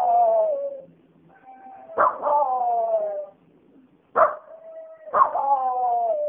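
Dog howling at a scrap-iron collector's call: about three long howls, each falling in pitch, the later ones starting with a sharp yelp.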